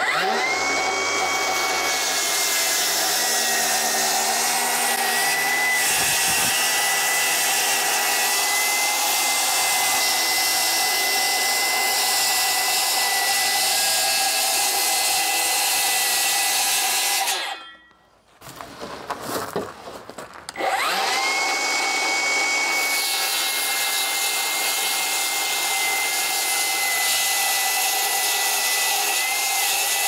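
Milwaukee Fuel circular saw cutting plywood: the motor spins up to a steady high whine and cuts for about seventeen seconds, then stops. It spins up again about twenty seconds in for a second cut.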